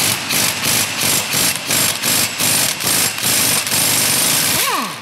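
Pneumatic impact wrench hammering on the lower rear toe link bolt to break it loose, pulsing about three times a second. It then runs steadily for about a second and stops near the end, winding down with a falling whine.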